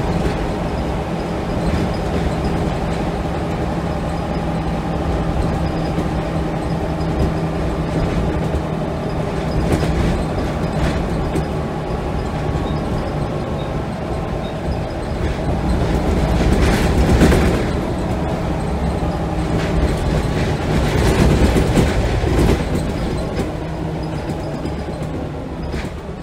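Scania L94UB bus's rear-mounted diesel engine running under way, heard from inside the saloon as a steady drone with rattling of the body and fittings. A burst of heavier clatter comes about two-thirds of the way through, and the sound eases off at the very end.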